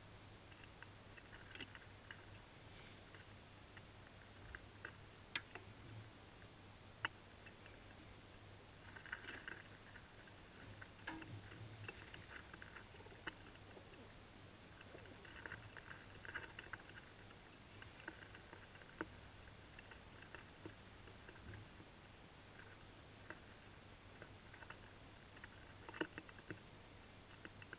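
Feral pigeons pecking bread crumbs off a stone windowsill: faint, scattered taps and clicks of beaks on the sill, now and then in short quick runs, over a steady low hum.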